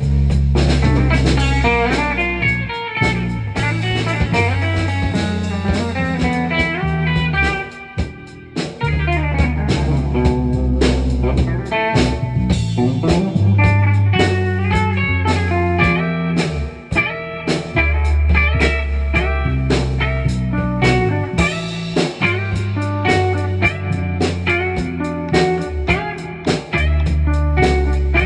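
Improvised instrumental jam by a guitar, bass guitar and drum kit trio, the guitar playing melodic lines over sustained bass notes and drums. The playing thins out briefly about eight seconds in.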